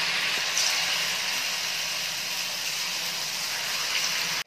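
Spoonfuls of wheat-flour and onion batter frying in a pan of hot oil, the oil sizzling and bubbling steadily around the fritters. The sound cuts off suddenly at the very end.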